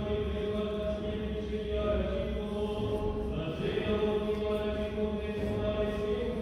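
Armenian liturgical chant: voices singing long held notes over a steady low drone, changing pitch every second or two, echoing in a large stone church.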